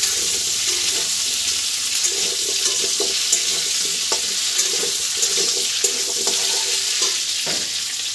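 Potato and taro pieces sizzling as they fry in oil in a pan, with a few short knocks of a spatula stirring them.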